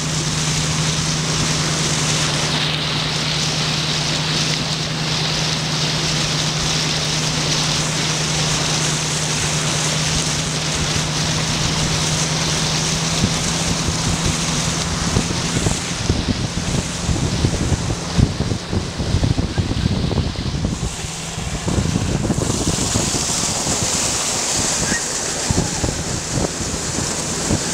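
Jeep engine running with a steady drone while water rushes and splashes against the body as it wades through a river. Wind buffets the microphone, with a stretch of heavier, choppy rumbling past the middle.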